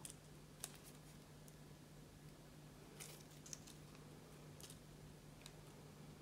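Near silence over a low steady hum, with a few faint, brief crinkles and ticks from coffee-filter paper petals and floral stem tape being handled and wrapped.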